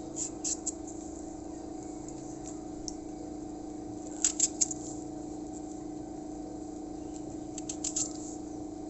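Kitchen knife slicing raw potato into fry strips against the hand: three short runs of crisp cutting clicks, near the start, about four seconds in and near the end. A steady low hum lies underneath.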